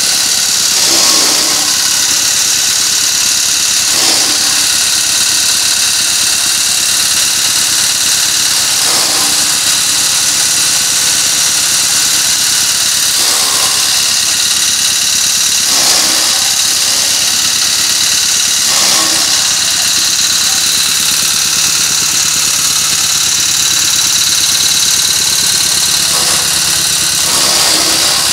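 Electric chaff cutter running, its blades chopping straw fed in by hand, over the steady running of the engine-driven generator that powers it. The sound dips briefly every few seconds as each bundle of straw goes in, about eight times.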